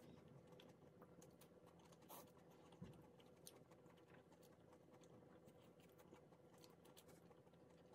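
Near silence with faint, scattered soft clicks from jackfruit being eaten by hand and chewed quietly.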